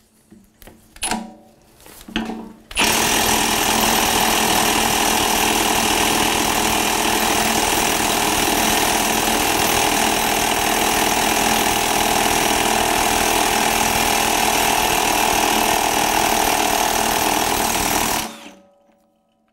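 Milwaukee 2763 M18 Fuel brushless cordless 1/2-inch impact wrench hammering steadily for about fifteen seconds on a heated nut preloaded to 1,100 foot-pounds in a Skidmore-Wilhelm bolt tension tester, then stopping abruptly as the nut is broken loose. A few knocks of the socket being seated come first.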